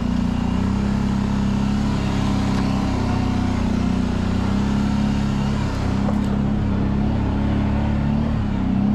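Dirt bike engine running at a steady cruising speed, its pitch wavering slightly, with a brief dip in revs a little past halfway.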